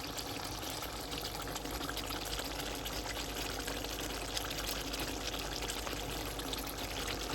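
Steady watery hiss with a fine crackle throughout, cutting off abruptly at the end.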